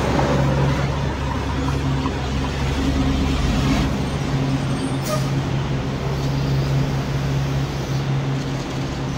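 City street traffic noise: a steady low hum under a constant wash of traffic, with a short high tick about five seconds in.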